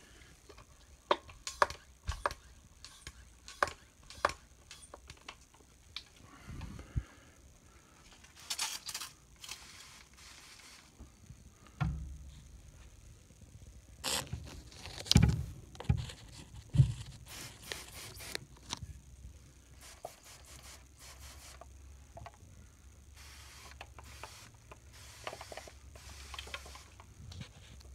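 Handling noise: scattered clicks, knocks and scrapes, with a few louder knocks about halfway through. A low steady hum comes in about twelve seconds in.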